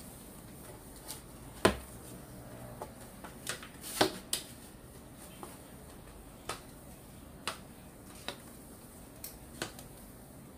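About a dozen light knocks and clicks at irregular intervals over a quiet room, the sharpest about one and a half seconds in, as a tiled floor is mopped.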